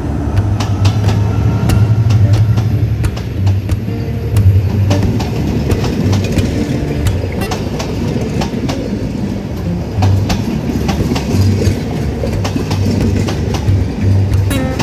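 An intercity passenger train passing close by: a diesel locomotive's engine running as it draws near, then the coaches' wheels clattering over the rail joints in a rapid stream of clicks.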